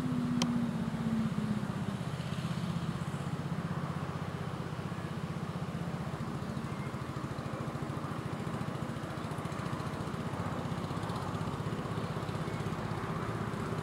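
The small internal-combustion engine of a diesel-outline miniature locomotive running steadily as it hauls a passenger train. Its note drops slightly in the first second or two, and there is a brief click near the start.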